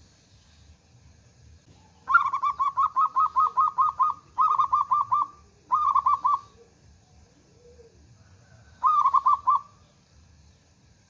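Zebra dove (perkutut) cooing in rapid staccato runs of about six notes a second. There is one long run about two seconds in, two shorter runs just after it, and a last short run near the end.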